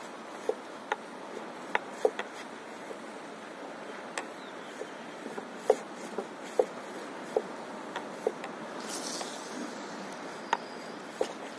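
Small wavelets lapping against an inflatable paddleboard: irregular short plops and plinks, about one a second, over a steady hiss of wind and water. About nine seconds in comes a brief high swish as the fishing rod is cast.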